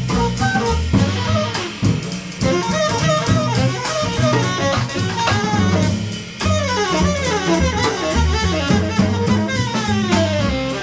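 Jazz trio playing live: tenor saxophone soloing in fast runs, several sweeping downward, over upright bass and drum kit with rimshots.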